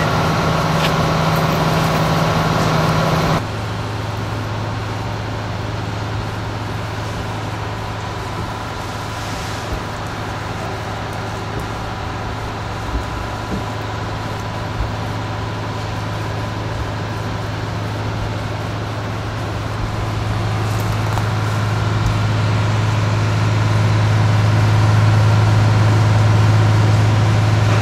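Fire apparatus engines running steadily, a low hum. About three seconds in it drops abruptly to a lower, quieter hum, which grows louder over the last several seconds.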